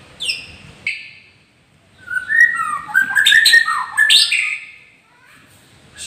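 White-rumped shama singing: a few short falling whistles, a pause, then a loud burst of varied rich whistles and warbles lasting about two and a half seconds.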